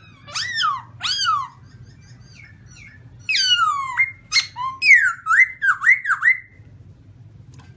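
Black-throated laughingthrush (Garrulax chinensis) singing loud, clear whistles. It gives two down-slurred notes in the first second and a half, then from about three seconds in a longer phrase of falling slurs and quick up-and-down whistled notes.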